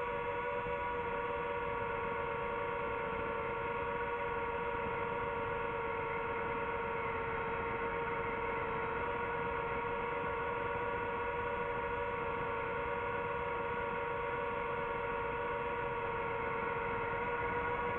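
DJI FPV quadcopter's motors and propellers whining at a steady pitch, holding a constant throttle.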